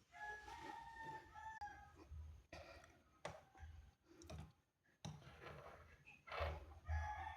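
A rooster crowing: one long crow at the start and another beginning near the end, with a few sharp clicks in between.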